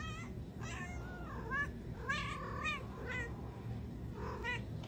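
Domestic cat giving a string of about half a dozen short, quiet meows, some bending up and down in pitch.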